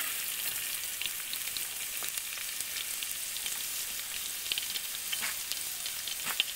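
Finely chopped garlic sizzling in a few spoonfuls of hot oil in an aluminium pot: a steady hiss with scattered small pops and crackles as the garlic is sautéed.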